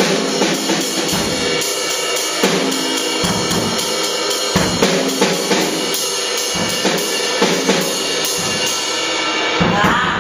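A drum kit played continuously: snare, bass drum and cymbals struck in quick succession, the cymbals ringing over the hits.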